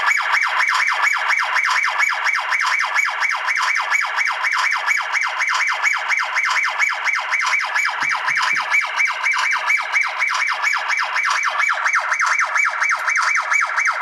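360 D819 video doorbell's anti-disassembly (tamper) alarm sounding: a loud electronic siren pulsing rapidly and evenly, set off because the doorbell has been taken from its place.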